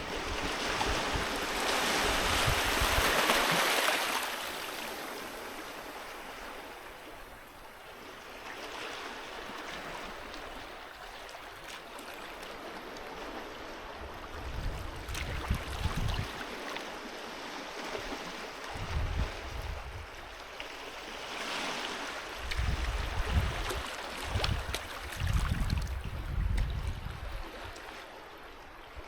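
Sea waves on a beach. A wave breaks in the first four seconds and its wash fades out, followed by softer, steady surf with bursts of low rumble in the second half.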